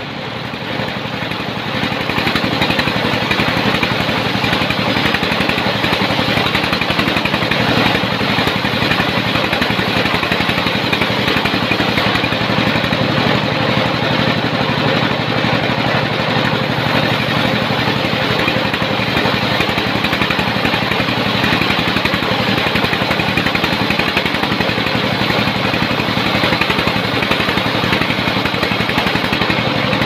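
Sawmill running with a steady, loud mechanical din, growing louder about a second and a half in and then holding level.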